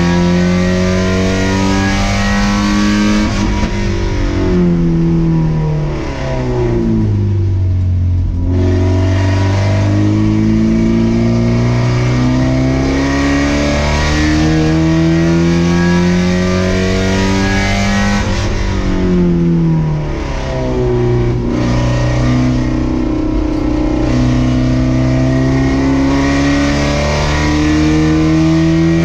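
Race car engine heard from inside the cockpit, pulling up through the revs. The pitch falls steeply twice, about four and about nineteen seconds in, as the car slows and downshifts, then climbs again under acceleration.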